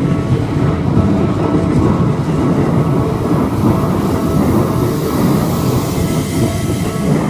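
Keikyu train passing over the level crossing: a steady, loud rumble of wheels on rail.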